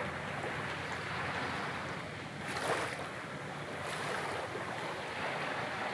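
Sea surf washing ashore, with wind on the microphone. The surf swells about two and a half seconds in and again around four seconds.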